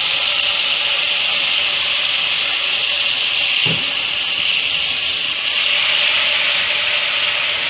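Ginger-garlic paste sizzling in hot ghee, a loud, steady hiss as it fries.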